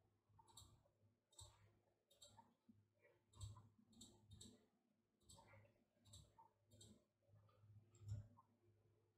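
Near silence in a small room, with faint, irregular soft clicks about one or two a second.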